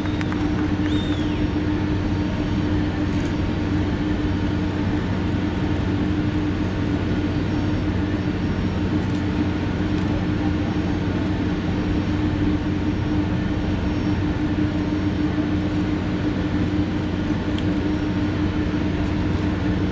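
Steady mechanical drone with a constant hum, from the parked Airbus A300-600ST Beluga and the ground equipment at its open nose, with a few faint ticks.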